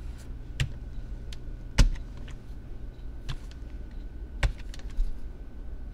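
A handful of short, sharp clicks and knocks, about five, the loudest about two seconds in, over a steady low hum and a faint steady high tone.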